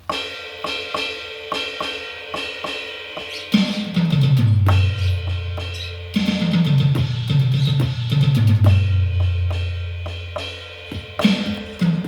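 A drum kit played in a steady beat of kick, snare and cymbal strikes. From about a third of the way in, low bass notes join underneath.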